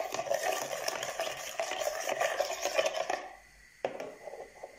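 Metal spoon stirring warm water, yeast and sugar in a mixing bowl: rapid, continuous scraping of the spoon against the bowl that stops a little over three seconds in, followed by a single knock.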